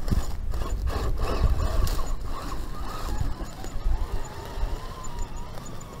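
Vanquish VS-410 Phoenix RC rock crawler working over rocks: its electric drive whines, with a wavering whine in the second half, and its tires and chassis knock and scrape on the rock. A low rumble sits under it.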